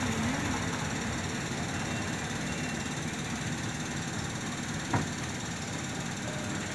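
Passenger train slowly pulling into a station, heard from inside a coach: a steady low rumble from the wheels and running gear, with one sharp knock about five seconds in.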